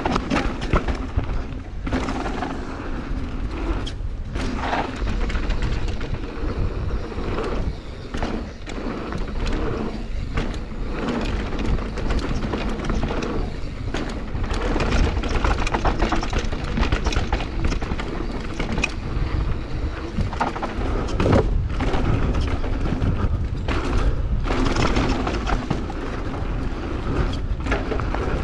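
Mountain bike riding fast down a very dry dirt trail, heard from a camera on the bike or rider: a steady low rumble of tyres and wind, with frequent uneven knocks and rattles as the bike hits bumps and roots.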